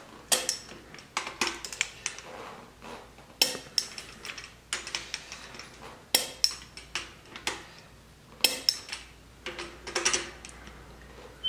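Irregular series of sharp metallic clicks from a long click-type torque wrench being ratcheted on the engine block's bottom-end bolts during final torquing.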